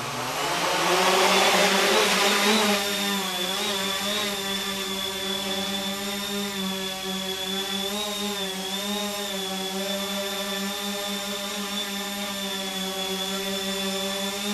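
Brushless motors and 9-inch props of a Hunter V-Tail multirotor spinning up with a rising whine and a loud rush of air over the first two or three seconds. They then hold a steady high whine.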